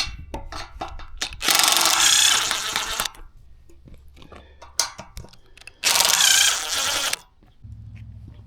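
A power tool running in two loud bursts of about a second and a half each, with clicks and knocks between them.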